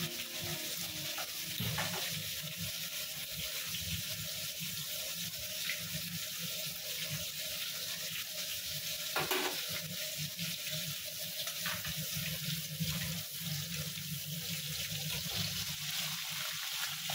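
Marinated chicken pieces sizzling steadily as they fry in a pan, with a few sharp knocks of a utensil against the pan.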